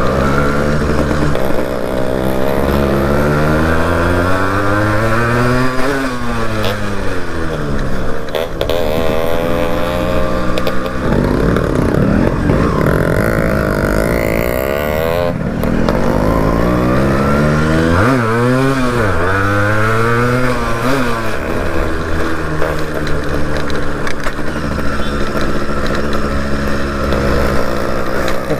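Yamaha RX two-stroke motorcycle engine being ridden. Its pitch climbs and falls repeatedly as the revs rise and drop, with sharp swoops down and back up twice.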